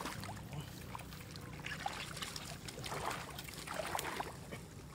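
Light splashing and trickling in shallow muddy water as fish wriggle and are picked up by hand, in short scattered splashes and drips.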